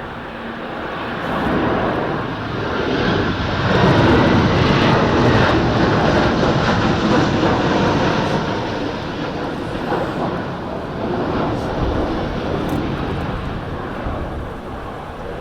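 Boeing 737-800 jet on landing approach, its CFM56 engines passing by. The roar swells to a peak about four seconds in, the pitch drops as it passes, and then it slowly fades.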